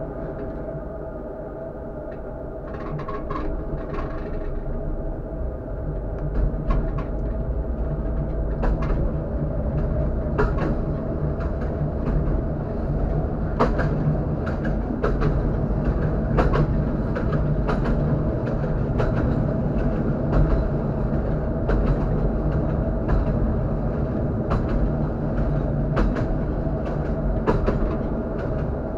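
Tatra KT4D tram running along the track, heard from the driver's cab: a steady hum and rumble that grows louder a few seconds in, with irregular clicks and knocks of the wheels over rail joints.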